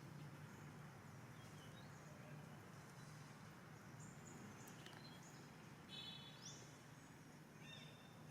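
Faint outdoor background: a low steady hum with scattered high chirps and short calls, the most distinct a few stacked calls and a quick rising note about six seconds in.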